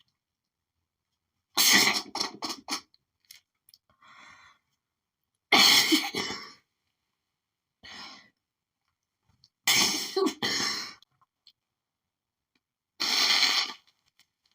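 A woman sneezing and coughing in an allergy fit set off by pollen: four loud outbursts about four seconds apart, with quieter breaths between.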